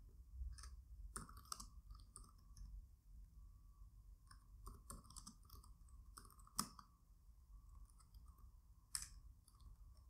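Faint, irregular clicking of computer keyboard keys being typed, with two sharper clicks, one a little past the middle and one near the end.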